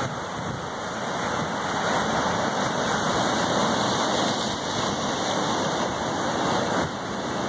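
Rough ocean surf breaking and foaming over the boulders of a rock jetty: a steady rush of churning water that grows louder about two seconds in.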